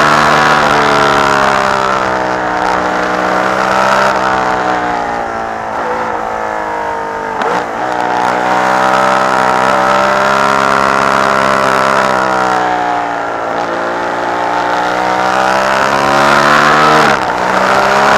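Ferrari 312B's flat-12 racing engine heard from the cockpit at high revs. Its note slowly falls and climbs again as the car slows for corners and accelerates, with sharp dips in pitch at gear changes about seven seconds in and near the end.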